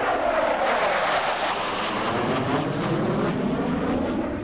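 Pair of F-16 fighter jets flying past, a loud jet roar whose pitch slides steadily down as they go by.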